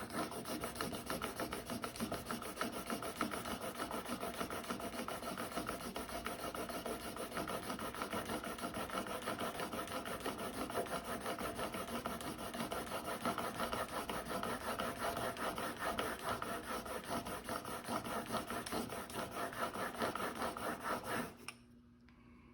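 Single-bevel steel broadhead in a KME sharpening jig being stroked rapidly back and forth on 800-grit sandpaper over glass, grinding the bevel on one flat plane. The rasping strokes run on steadily and stop abruptly about 21 seconds in.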